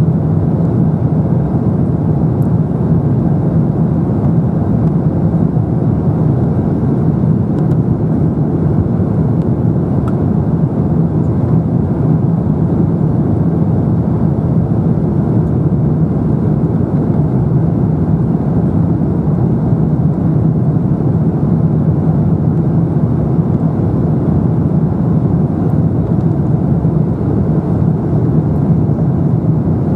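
Steady cabin noise inside an Airbus A350-900 in flight on approach: the even drone of its Rolls-Royce Trent XWB engines and rushing air over the fuselage, constant in pitch and level.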